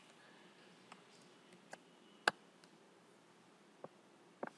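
A faint handful of short, sharp computer mouse and keyboard clicks, spaced irregularly, the loudest about two seconds in, over a low steady room hiss.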